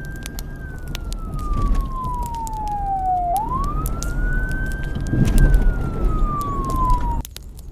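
A siren wailing: one tone rising slowly, then falling, twice over, under a steady low rumble and scattered sharp crackling from the burning plastic toy car. The siren and rumble cut off abruptly near the end.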